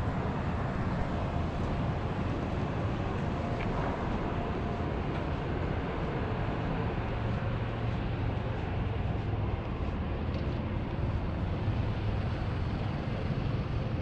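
Steady low rumble with a hiss over it, unchanging throughout, with no distinct events: general background noise on an open airfield apron.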